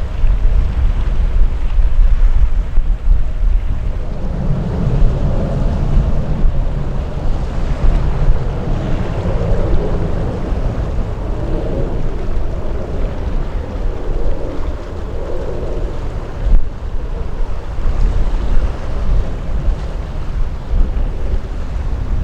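Wind buffeting the microphone in a constant low rumble, with a jet aircraft's engine noise swelling a few seconds in and fading again after about twelve seconds.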